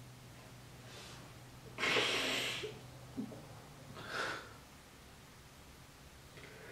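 A man weeping, breathing in sobs: a faint breath about a second in, a loud sobbing breath about two seconds in, a brief catch of the voice, then another sobbing breath about four seconds in.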